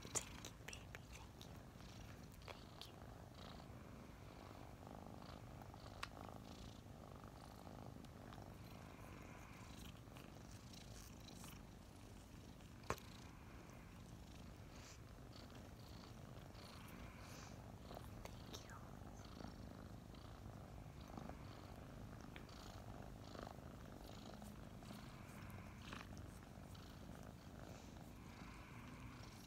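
Two five-month-old kittens purring, a faint, steady purr close to the microphone, with a few brief clicks.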